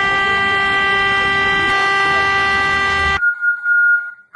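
Civil-defence warning siren sounding the 'Attention everyone' alert: a loud, steady horn-like tone that cuts off suddenly about three seconds in. A thinner, higher tone then swells and fades several times.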